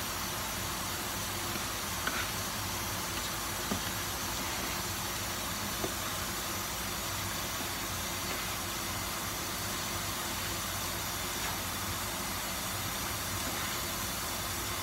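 Chicken and diced vegetables sizzling steadily in a saucepan as they are stirred, with a few light clicks of the spatula against the pan.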